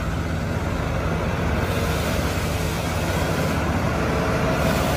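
Heavy semi-truck's diesel engine running steadily as the tractor unit pulls a low-bed trailer loaded with a tracked loader over dirt.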